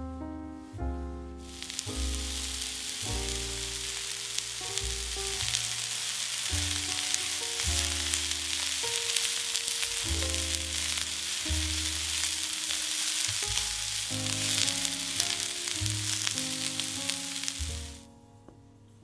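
Food frying in hot oil in a pan: a steady sizzle with fine crackles that starts about a second and a half in and cuts off abruptly shortly before the end.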